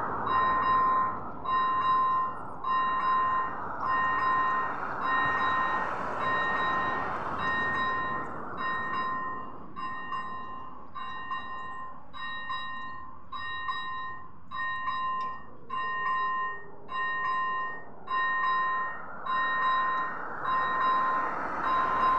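Railway level-crossing warning bell ringing a repeating electronic ding, about one and a half strokes a second, signalling that the crossing is closing for an approaching train.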